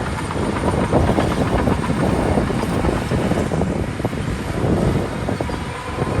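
Shantui DH17C2 crawler bulldozer working, its diesel engine running steadily under a continuous clatter of steel tracks.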